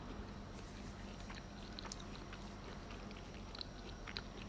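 Faint, scattered small clicks of someone chewing and eating, over a steady low hum.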